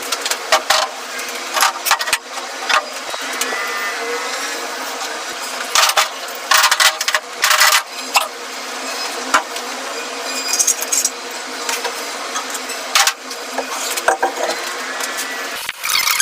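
Irregular sharp clicks and knocks over a steady background noise.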